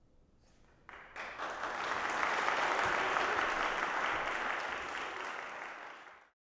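Audience applauding after an orchestral piece: the clapping starts about a second in, swells, and is cut off abruptly just before the end.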